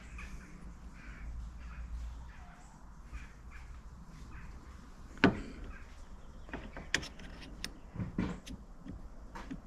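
A handful of sharp clicks and taps from about five seconds in, as the bonnet hinge's pin and plastic bushes are slid back into the hinge. Crows caw faintly in the background early on.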